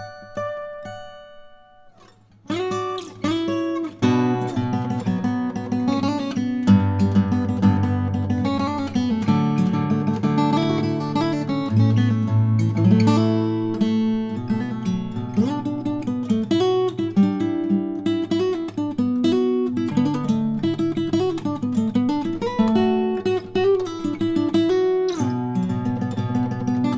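Background music led by a plucked and strummed acoustic guitar. It starts after a short quiet gap about two seconds in, and a low bass part comes in about seven seconds in.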